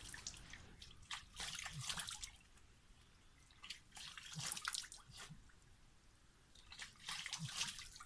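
Hands scooping and splashing water in a shallow stream as a man washes, in three bouts of splashing with quieter trickling between.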